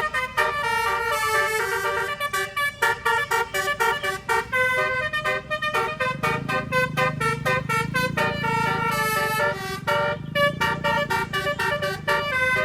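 Bus telolet horn, a multi-trumpet air horn, playing a quick tune of short notes. A low engine rumble rises underneath about six seconds in and fades again near ten seconds.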